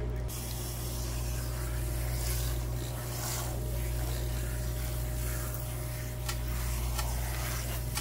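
Salon shampoo-bowl hand sprayer running, water spraying onto the hair and into the bowl to rinse out the shampoo. It comes on just after the start, over a steady low hum.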